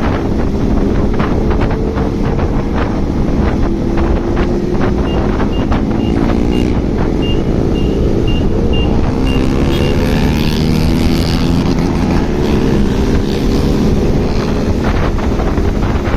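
Motorcycle engines running and revving while riding in a group, with heavy wind buffeting the microphone. A string of short, evenly spaced high beeps sounds from about five seconds in for about five seconds.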